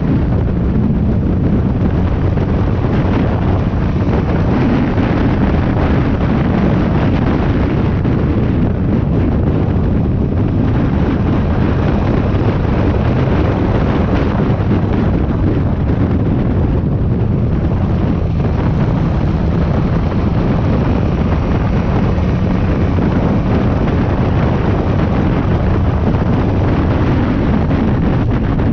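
Steady wind rush buffeting the microphone of a motorcycle riding at road speed, with the motorcycle's engine running underneath.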